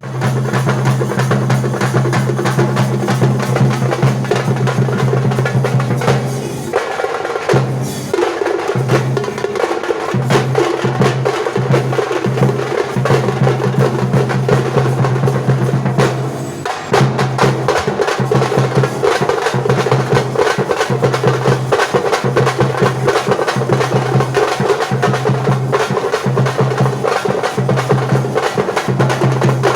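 Percussion-heavy music: fast, dense drumming with sharp clicking strokes over a steady low tone. It thins out briefly about a quarter of the way in and again just past halfway.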